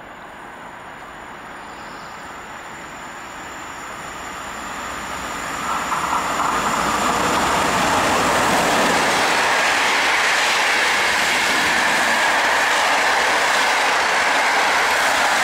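PKP Intercity passenger train hauled by an EP09 electric locomotive passing through a station at speed. The rumble of wheels on rails grows louder for about six seconds as the locomotive approaches, then holds as a steady rush while the carriages go by.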